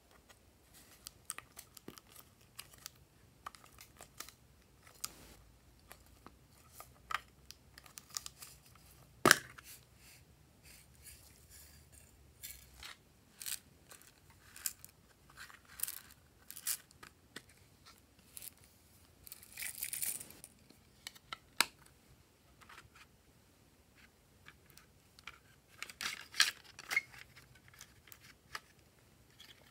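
Scattered clicks, taps and rustles of hands handling small plastic cases and toys, with one sharp click about nine seconds in and a brief rustle around twenty seconds.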